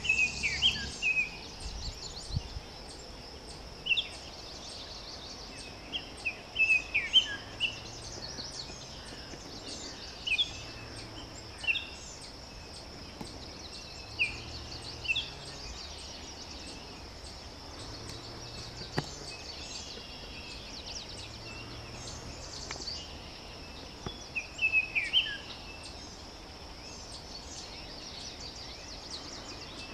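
Forest birdsong ambience from a stock sound library: short chirping calls in small clusters every couple of seconds, over a steady high-pitched background hiss.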